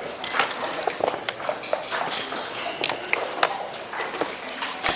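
Backgammon checkers and dice clicking and clacking on boards, in irregular sharp taps throughout, with one louder click just before the end.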